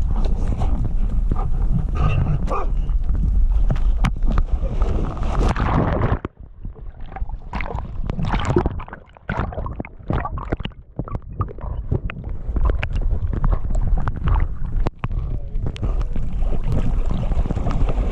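Water splashing and sloshing around a dog's body as it wades and swims with a stick, under a steady rumble of wind and movement on the harness-mounted microphone. About six seconds in the rumble cuts out and gives way to gurgling, dripping and scattered splashes with the camera at the waterline. The rumble returns near the end.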